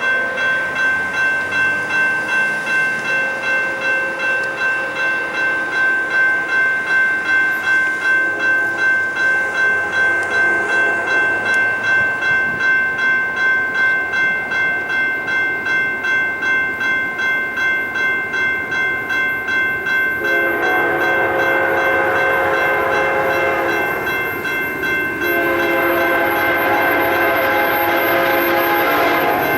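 Railroad grade-crossing warning bell ringing steadily, about twice a second, as a train approaches. About two-thirds of the way in a locomotive air horn joins it with two long blasts, the second running on past the end.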